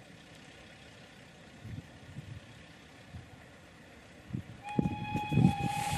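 Steam locomotive approaching, quiet at first. About four and a half seconds in its exhaust beats become audible and its whistle sounds one long steady note that carries on to the end.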